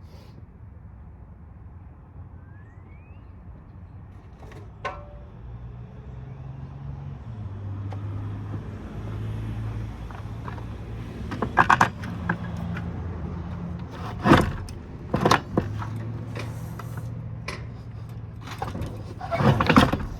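Metal clanks, clicks and scrapes from hand tools working on a scrapped power supply, with several sharp knocks in the second half, as a part is bent and pried. A low drone, shifting in pitch and growing louder, runs underneath.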